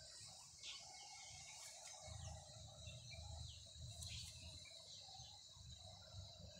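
Faint outdoor ambience: birds giving short falling chirps over a steady high insect drone, with a low rumble underneath.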